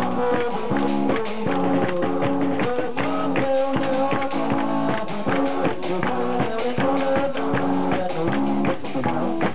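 A live band playing a song, with guitar chords and a drum kit keeping a steady beat.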